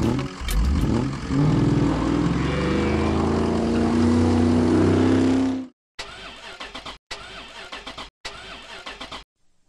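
Truck engine sound effect: the engine revs up, its pitch rising for several seconds, then cuts off abruptly about halfway in. A few seconds of faint spluttering and clicking follow as it dies.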